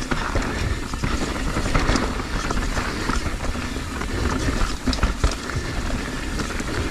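Mountain bike riding down a rough dirt trail: steady tyre and wind rumble with frequent clatter and sharp knocks from the bike over bumps, the loudest knock about five seconds in.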